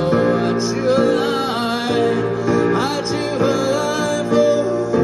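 A man singing a melody into a microphone, amplified, over sustained piano chords that he plays himself.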